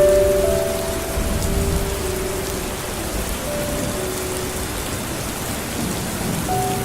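Steady rain falling, with a low rumble of thunder dying away over the first second or two. Soft held notes of background music sound over the rain.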